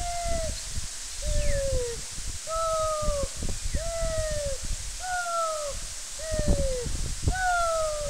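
A person's voice calling out over and over in high, held cries, about one a second, each dropping in pitch at its end, over the steady rush of a waterfall.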